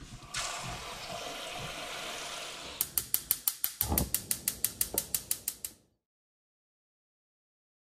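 Kitchen faucet running water into a steel pot of eggs, then a gas range's spark igniter clicking rapidly, about seven clicks a second, as the burner lights under the pot, with a single thump about four seconds in. The clicking cuts off suddenly.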